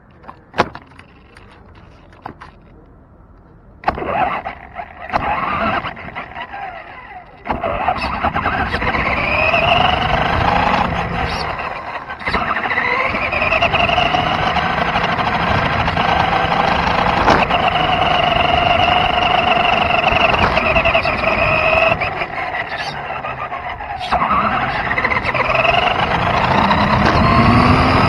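RC car's motor, heard from on board: a few clicks, then short bursts of running about four seconds in. From about eight seconds it runs steadily, its high pitch climbing, holding and falling several times as the car speeds up and slows.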